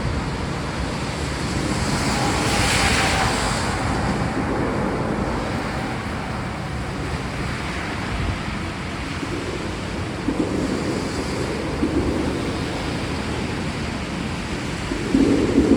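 Steady rain falling, a continuous wash of noise, with a swell of louder hiss about two to four seconds in and a few brief low rumbles around ten seconds in and near the end.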